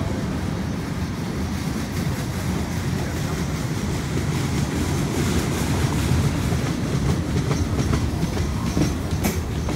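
Freight train cars rolling past, their wheels running over the rails in a steady low rumble, with one sharp click near the end.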